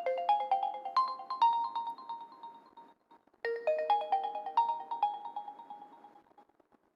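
Realme 6 Pro ringtone playing: a short melody of clear notes that fades out, then starts again about three and a half seconds in and fades once more.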